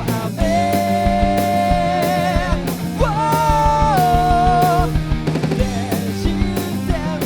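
Rock song with drums and band playing, over which two long held melodic notes sound one after the other, each wavering at its end.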